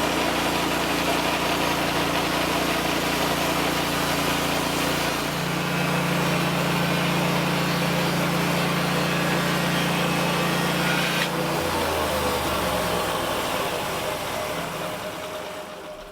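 Small engine of a Norwood portable sawmill running steadily. Its note shifts about five seconds in, drops lower about twelve seconds in, then fades away near the end.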